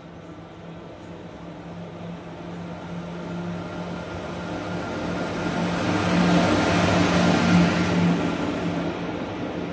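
WAP-4 electric locomotive and its passenger coaches approaching and running past at speed. A steady low hum grows louder with a rising rush of noise, loudest about six to eight seconds in as the locomotive and first coaches pass, then eases a little.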